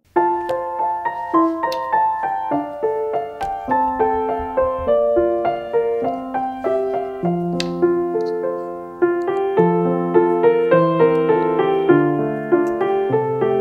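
Background piano music that starts abruptly: a melody of separate struck notes over lower accompanying notes, at a steady moderate pace.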